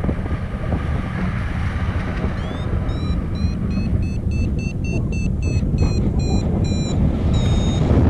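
Strong wind rushing over the microphone in flight, the loudest sound throughout. From about two and a half seconds in, a paragliding variometer gives a rising tone and then a quick run of short high beeps, about three a second, creeping up in pitch. This is the variometer's climb signal for rising air. It ends in a longer held tone.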